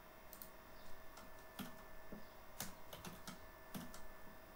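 Scattered, quiet clicks of computer keyboard keys being typed, over a faint steady hum.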